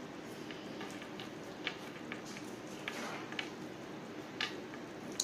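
Light, scattered clicks and rustles of artificial flower stems and plastic berry picks being handled, half a dozen small ticks spread through the middle, over a faint steady low hum.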